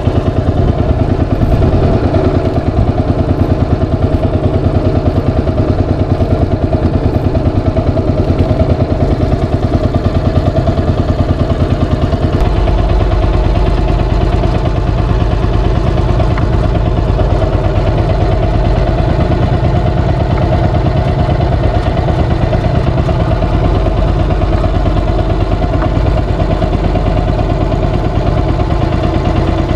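Small fishing boat's engine running steadily with an even, rapid firing rhythm; its note shifts a little about twelve seconds in.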